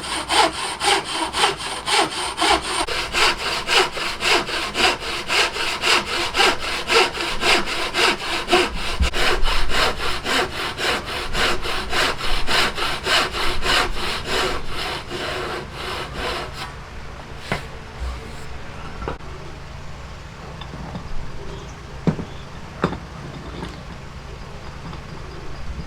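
Hand saw cutting wood with rapid, even back-and-forth strokes, which stop about two-thirds of the way through. After that there are only a few light knocks.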